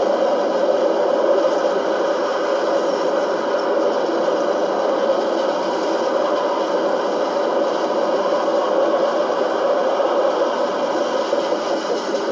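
CSX freight train of boxcars and tank cars rolling past at close range: a loud, steady noise of steel wheels running on the rails.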